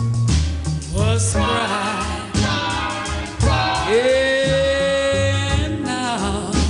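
1960 soul ballad with a female lead voice and backing singers over a band, with a long held sung note in the middle.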